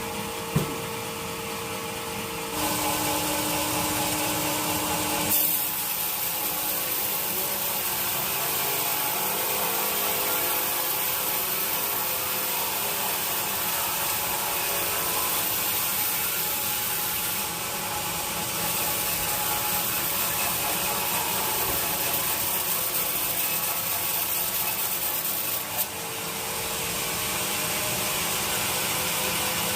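Sawmill saw cutting through a teak log: a steady, continuous sawing noise that changes character a few seconds in and dips briefly near the end.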